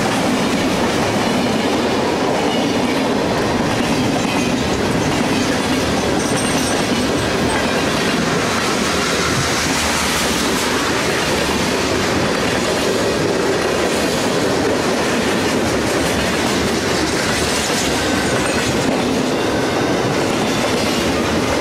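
Freight train cars rolling past close by: a steady, unbroken rumble and clatter of steel wheels on the rails as hoppers, tank cars and boxcars go by.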